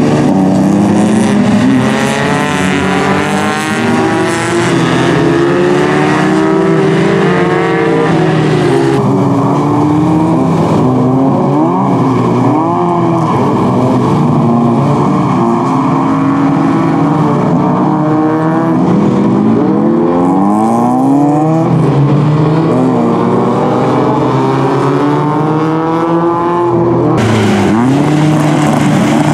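Several jokkis (everyman-class) autocross cars' engines revving hard on a wet dirt corner, many engine notes overlapping and rising and falling as the drivers work the throttle. The sound shifts abruptly about nine seconds in and again near the end.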